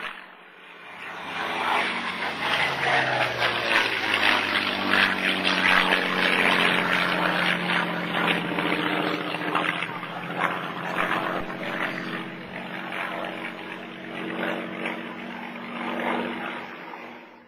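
Messerschmitt Bf 109 G-10 fighter's V12 piston engine and propeller running at power as it flies past. The pitch drops a few seconds in as it goes by, then a steady drone follows that fades near the end.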